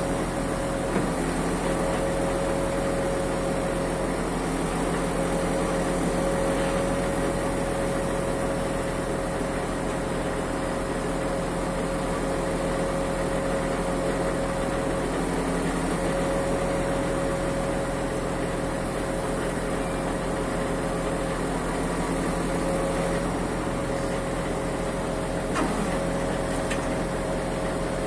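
Truck engine running steadily to power an HDS loader crane's hydraulics while it lowers a pallet of concrete blocks, with a steady whine that drops out and returns a few times. A couple of light knocks, one about a second in and one near the end.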